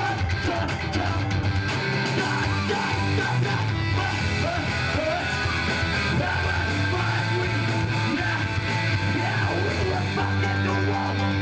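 Live punk rock band playing loudly: electric guitars strummed hard with a singer shouting the vocals into the microphone, without a break.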